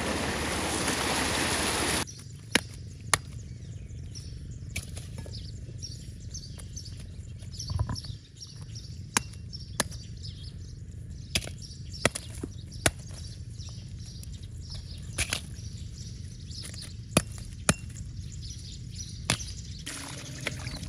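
A loud steady rushing noise that cuts off about two seconds in, then irregular sharp clicks and taps as small fish are dropped into an aluminium pan, with birds chirping faintly behind.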